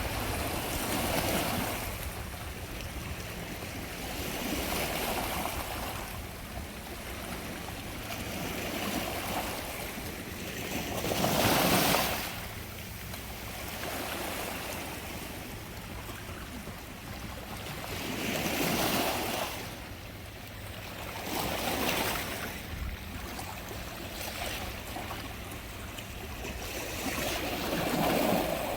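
Waves breaking and washing on a shore, the surf swelling and falling back every few seconds, with one louder break about twelve seconds in.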